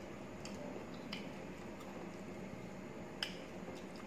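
Eating by hand: a handful of sharp little clicks and squishes from chewing and from fingers mixing rice on a metal plate, the strongest about three seconds in.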